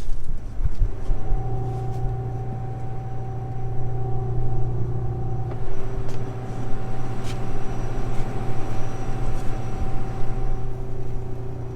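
Combine running with a steady hum, firming up about a second in, with a few short clicks over it.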